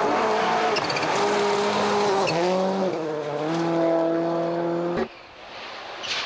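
Subaru Impreza WRC rally car's turbocharged flat-four engine running hard on gravel, its pitch holding steady and changing at gear changes about two and three and a half seconds in, with gravel spraying from the tyres. About five seconds in the sound cuts suddenly to a quieter rally car approaching and growing louder.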